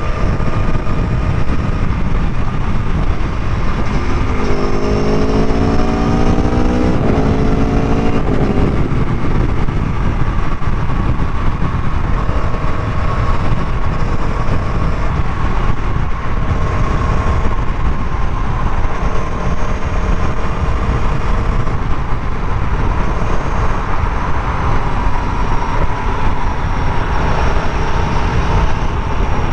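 Aprilia Tuono V4 1100 Factory's V4 engine accelerating while riding, under heavy wind noise. Between about four and eight seconds in, the engine note climbs, drops, and climbs again twice: clutchless upshifts on the quick shifter.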